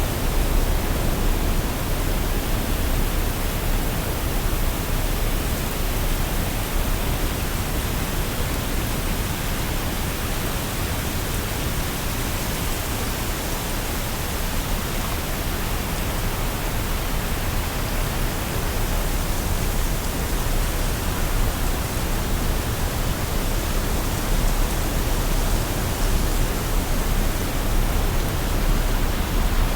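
Waterfall: a steady, unbroken rush of falling water with a deep rumble underneath.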